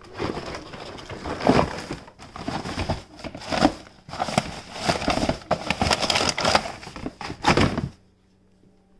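Cardboard action-figure packaging being crumpled and shoved into a plastic trash can: an uneven run of rustling, crackling and knocks that stops abruptly about eight seconds in.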